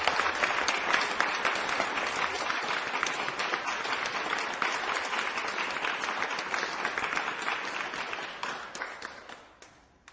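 A crowd applauding, many hands clapping in a dense, steady patter that dies away near the end.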